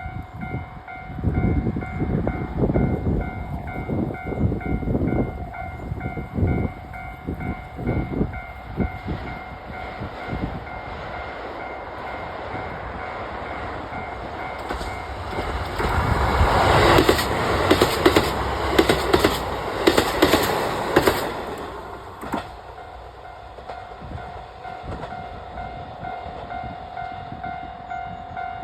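Level crossing alarm bell ringing steadily while a JR Hokkaido KiHa 183 series diesel express train passes over the crossing. The train is loudest for about six seconds around the middle, with its wheels clattering in an even rhythm, then fades while the bell keeps ringing.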